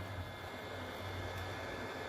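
Hot-air rework station blowing steadily while a replacement LED driver IC is soldered onto the TV power board: an even airy hiss over a low hum.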